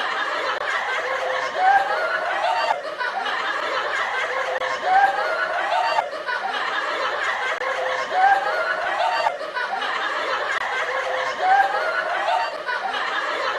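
A laughing sound effect played on a loop: the same snickering laugh repeats about every three and a third seconds.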